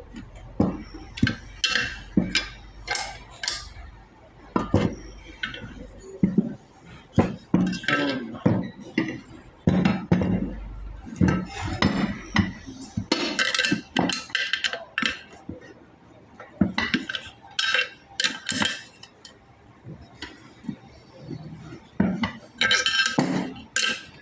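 Irregular metallic clinks and knocks of hand tools and metal parts being handled during work on a truck brake servo and master cylinder.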